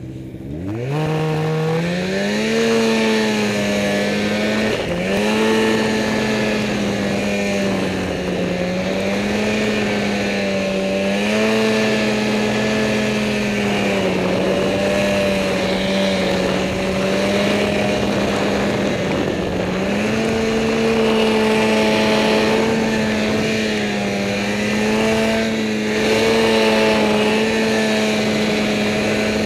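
Snowmobile engine revving up over the first couple of seconds, then running hard under load through deep fresh powder, its pitch dipping and climbing again as the throttle eases and opens, with a short drop twice.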